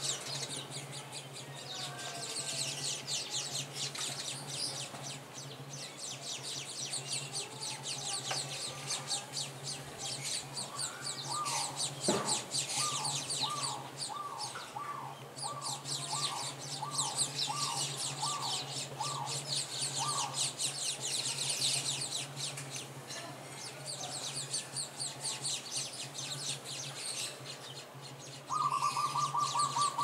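Small birds chirping and twittering in dense, quick, high-pitched bouts. Midway comes a run of about a dozen evenly spaced repeated notes, and near the end a loud, steady trill. A steady low hum runs underneath.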